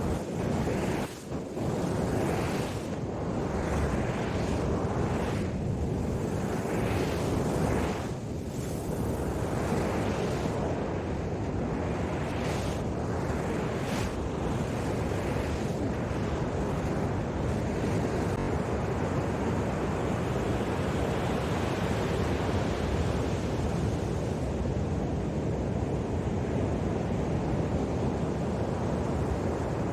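Ocean surf washing steadily onto a beach, with wind on the microphone; several swelling surges in the first half.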